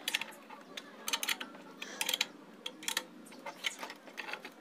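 Irregular metallic clicks and clinks from a hand tool tightening the mounting screws of an air-cooler fan motor, coming in small clusters about a second apart.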